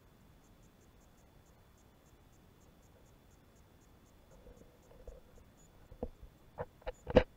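Faint steady hiss heard from inside an action camera's waterproof case lying underwater on a lakebed, with a faint high ticking about five times a second. Near the end come a few soft rumbles and then four sharp knocks, the last one the loudest.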